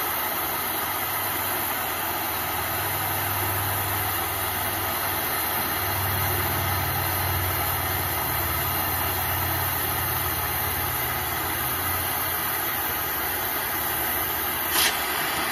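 Handheld angle grinder grinding steel, running steadily under load without a break, with a short tick near the end.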